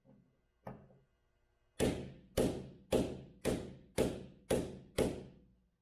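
Hammer striking a manual impact driver seated in a Torx bolt: one light tap, then seven sharp, ringing metal blows about two a second. The blows shock the stuck bolt to loosen it up without stripping the Torx head.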